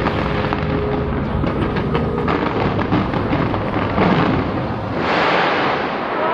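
Large aerial fireworks display, many shells bursting in rapid, overlapping succession as a continuous crackling and banging. The crackle thickens into a louder rush about five seconds in.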